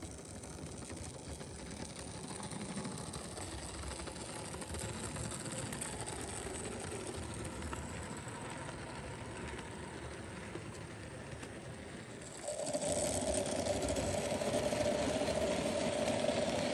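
Märklin model freight train running along the track: the electric locomotive's small motor whirs and the wheels rattle over the rails. About three quarters of the way through the sound grows louder and a steady hum joins in.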